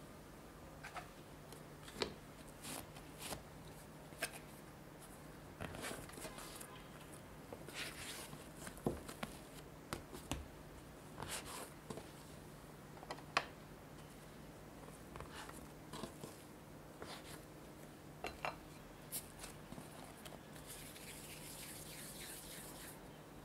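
Hands dividing soft bread dough on a wooden cutting board: scattered soft taps, clicks and squishy handling noises as pieces are pulled apart and set down. Near the end, a steady hissy rubbing as a piece is rolled into a ball on the board. A faint steady low hum runs underneath.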